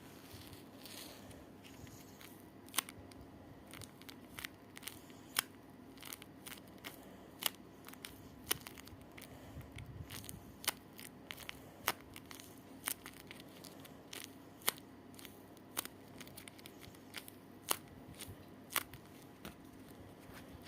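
A series of sharp, short clicks, irregularly spaced at roughly one a second, over a steady low hum.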